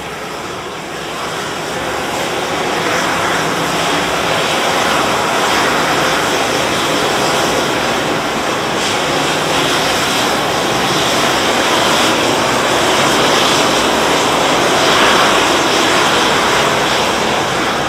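Condensed-aerosol fire suppression unit discharging into a compartment with a burning diesel pool fire: a steady rushing noise that builds over the first few seconds and then holds, as the aerosol knocks the fire down.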